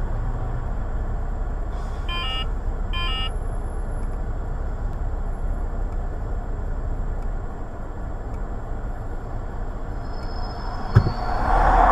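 Steady hum of cars idling in traffic, heard from inside a car, with two short car-horn beeps about two and three seconds in. A sharp knock comes shortly before the end, followed by a louder swell of noise.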